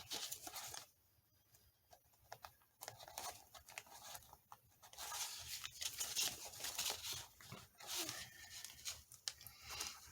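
Paper envelopes being handled and pressed together: faint, uneven rustling and crinkling of paper, with small taps and clicks.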